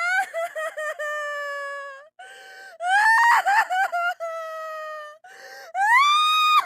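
Cartoon octopus character crying in a high child's voice: long wails that rise in pitch and then hold, broken by short sobbing catches. The last wail climbs highest.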